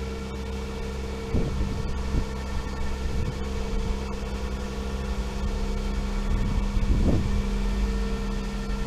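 Tow truck engine running steadily at a constant speed, with low gusts of wind buffeting the microphone about a second and a half in and again near seven seconds.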